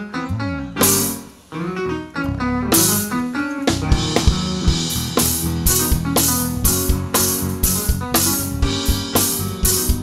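A live band plays an instrumental passage: electric guitar and bass guitar over a drum kit. There are a couple of cymbal crashes in the first few seconds, then about four seconds in the drums settle into a steady beat of kick drum and cymbals.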